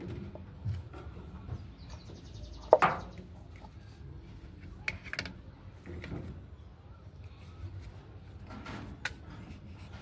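Scattered clicks and light knocks from a washing machine's plastic drain pump assembly and its rubber hoses being handled, with a sharp click about three seconds in.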